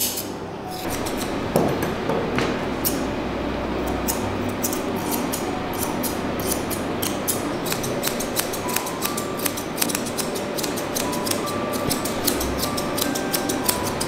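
Grooming shears snipping through the long hair on a dog's face, with crisp snips coming rapidly, several a second.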